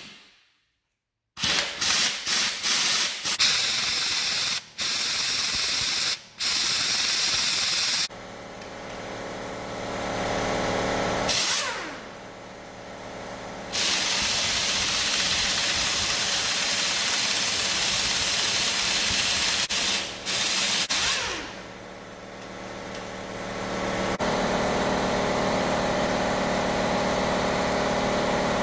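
Compressed-air tool hissing in several long bursts of a few seconds each, starting and stopping abruptly, with a steadier hiss in the last part.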